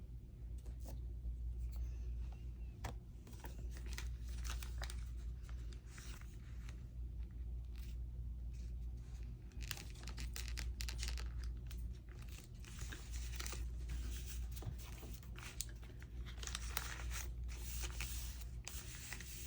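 Paper being handled and rustled during gluing, with scattered small clicks and taps.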